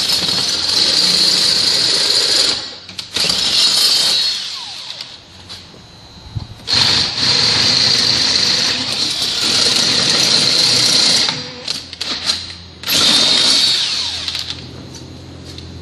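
Cordless drill with a 3/8-inch bit boring through metal, opening pilot holes in the barricade bar's elbows to 3/8 inch. It runs in four stretches: about two and a half seconds, a short burst, a longer run of about four and a half seconds in the middle, and a short burst near the end, with pauses between them.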